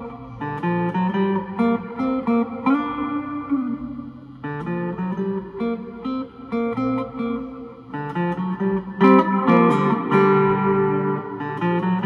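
Custom electric guitar with hand-wound P90 pickups played through the neck pickup: picked single notes and chords, with a held note bent upward a few seconds in, and harder, louder playing from about three quarters of the way through.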